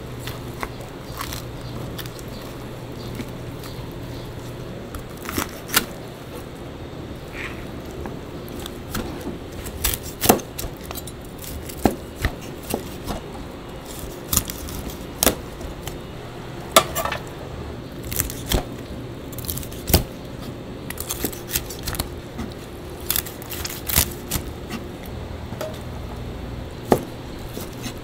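Kitchen work sounds: scattered clinks, knocks and clatters of knives, metal trays, pans and an oven rack, heard over a steady machine hum.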